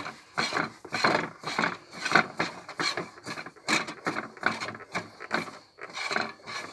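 Close rubbing and scraping of a plastic toy washing machine being handled and turned over, in a quick, irregular run of short scrapes.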